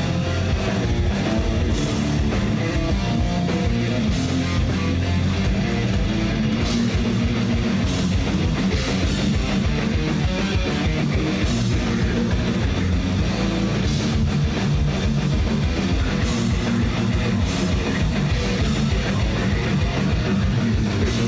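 Heavy metal band playing live: loud distorted electric guitars over a fast-hit drum kit.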